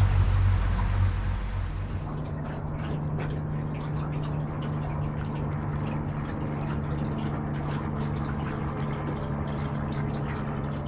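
Water lapping and splashing against an aluminium boat hull in short irregular slaps, over a steady low hum. In the first two seconds a loud low rush of the boat running dies away.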